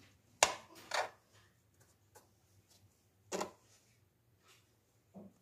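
Kitchen knife and hands working bread slices on a plastic cutting board while trimming off the crusts: a few short, sharp knocks, the loudest about half a second in, another about a second in, one at about three and a half seconds and a fainter one near the end.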